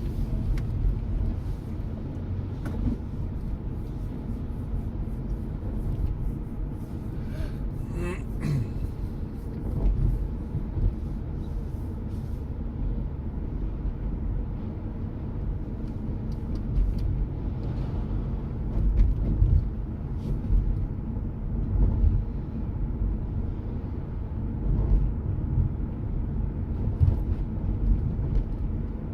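Steady low rumble of a car's engine and tyres, heard from inside the moving car. About eight seconds in there is a brief higher-pitched sound.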